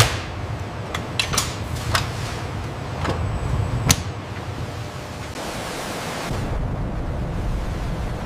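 Factory machinery ambience: half a dozen sharp clicks and knocks over a steady hum, then a deep low rumble that builds about six seconds in.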